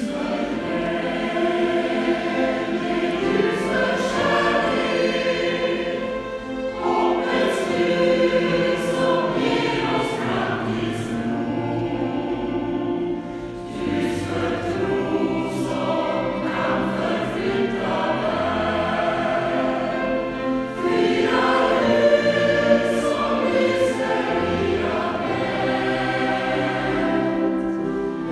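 Mixed church choir singing in parts, with a violin playing along; a short break between phrases about halfway through.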